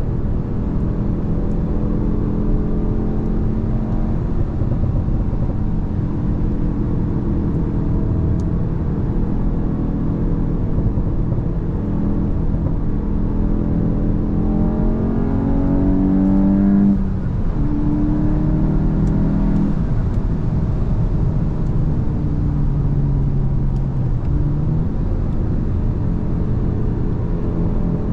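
Mk8 VW Golf GTI's turbocharged 2.0-litre four-cylinder running E85 on a Stage 1 tune, driving along. The engine pitch climbs under acceleration for a few seconds past the middle, drops sharply at a gear change, then pulls steadily again.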